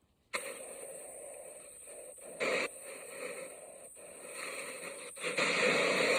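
Sea waves washing ashore: a steady hiss of surf that cuts out briefly at the start, with a short surge about two and a half seconds in and a longer, louder surge near the end.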